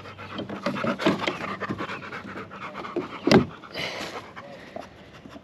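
A dog panting close by, in quick, uneven breaths, with one sharp knock a little past the middle.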